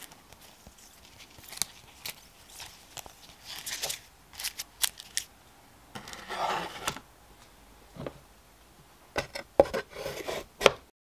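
Hands handling trading cards in clear plastic holders and sliding them into a laser-cut wooden box: irregular rubbing, scraping and clicking, with a longer slide about six seconds in and a cluster of sharp clicks near the end as the wooden lid goes on.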